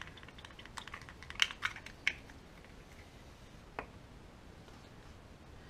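A few light clicks and taps from small plastic airbrush paint bottles being handled while paints are mixed, the sharpest two about a second and a half and two seconds in, a softer one near four seconds.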